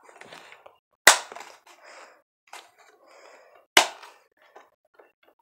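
Two sharp plastic clacks about three seconds apart, with rustling and handling noise between them, as a toy Nerf blaster is handled.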